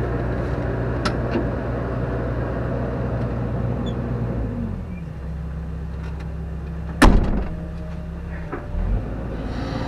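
JCB JS130 excavator's diesel engine running, heard from inside the cab: it drops to a lower, steady speed about halfway through, then climbs back up near the end. A single sharp clunk about seven seconds in is the loudest sound.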